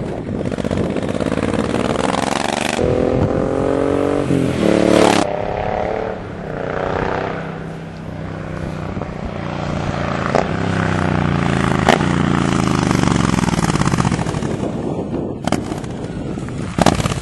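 Suzuki Boulevard M109's V-twin running through a new 2-into-1 stainless exhaust with a deep sound, its revs rising and falling several times. It drops quieter about six seconds in and grows louder again past the middle.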